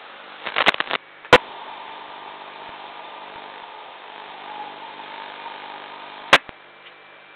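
Steady hiss from a security camera's built-in microphone, broken by a quick cluster of knocks about half a second in, one sharp loud click a moment later, and another sharp click near the end.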